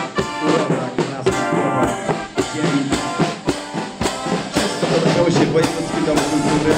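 Marching band playing a march outdoors: brass instruments carry the tune over a bass drum, snare drums and cymbals keeping a steady beat of about two strokes a second.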